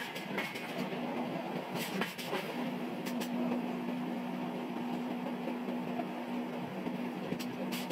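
Heavy forging machinery running: a steady hum under dense clattering noise, with a few sharp knocks, one about two seconds in and another near the end.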